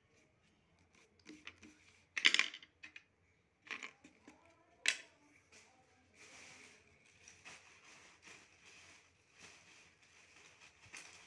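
Handling noise on a wooden desk: a short clatter about two seconds in and a sharp click near five seconds, as drawing things are put down and picked up, then soft, uneven rustling of a sheet of drawing paper under the hands.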